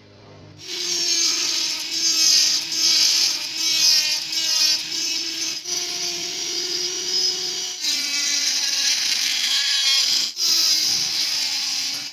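Mini rotary grinder with a small cutting disc cutting through the plastic body of a gas lighter: a steady high whine over a grinding hiss. It starts about a second in and dips briefly three times as the cut is worked.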